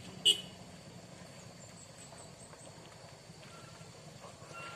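A short sharp blip just after the start, then the faint, steady low run of a loaded Mitsubishi truck's diesel engine on a slippery muddy climb.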